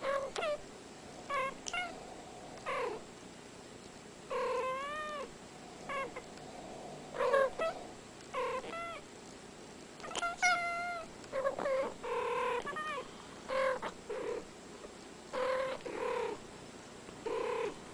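Two domestic tuxedo cats trading short meows and chirrups back and forth, roughly one call a second with brief pauses between. A few calls waver up and down in pitch.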